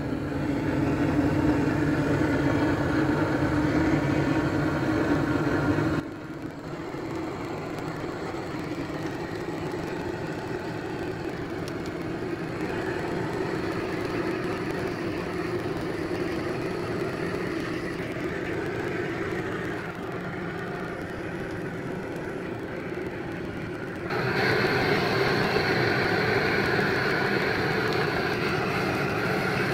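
Hand-held propane torch burning steadily, blasting its flame into an offset smoker's firebox to light the wood fire: a loud, steady rushing roar. It drops abruptly about six seconds in and comes back louder and brighter about 24 seconds in.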